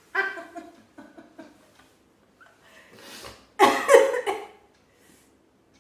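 A man sneezing: a breathy intake builds for about a second, then one loud sneeze bursts out just past the middle. Short voice sounds come near the start.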